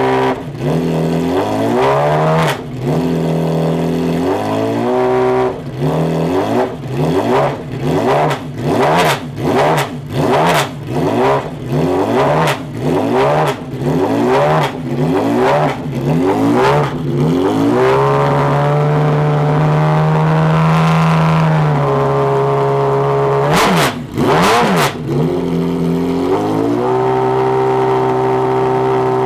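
McLaren F1 GTR Longtail's BMW V12 being revved while standing: a long run of quick throttle blips, each rising and falling, then held at a steady raised rpm for a few seconds before dropping back to a lower steady run, with two more sharp blips in between.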